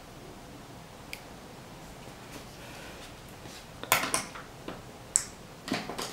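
A few sharp clicks and taps over faint room hiss: one small click about a second in, then a quick cluster of louder clicks from about four seconds on.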